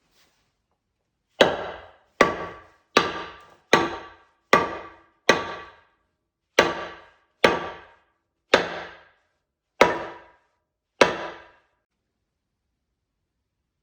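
Eleven sharp blows of a hammer striking wood, each ringing briefly. They come about one a second, slowing toward the end.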